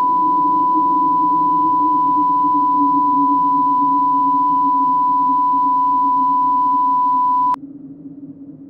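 A single steady, high, pure electronic tone, loud and unchanging, held for about seven and a half seconds and cutting off suddenly with a click, over a low steady drone.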